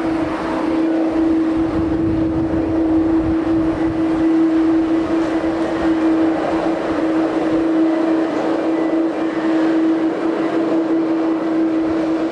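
Jet engines of a Boeing 767-300ER running with a steady droning tone over a broad roar, with wind gusts rumbling on the microphone in the first few seconds.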